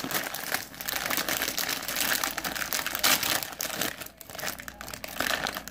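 A plastic snack bag crinkling as it is handled, a continuous run of quick crackles.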